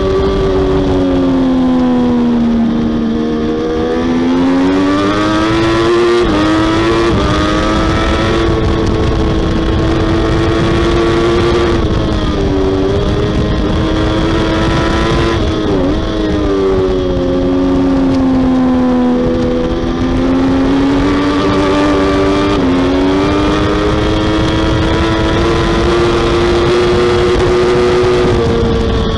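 Triumph Daytona 675R's 675cc inline-three engine at racing revs, its pitch sinking into the corners and climbing again on the throttle, with sudden drops in pitch at each upshift.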